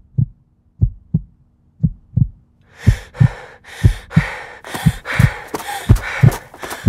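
Heartbeat sound effect: paired low lub-dub thumps about once a second. About three seconds in, fast, hissing breaths like panting join the beats.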